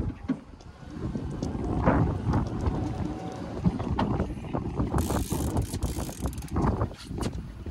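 Fishing reel clicking in quick, irregular runs as an angler plays a hooked salmon. Wind buffets the microphone, and there is a brief splash about five seconds in.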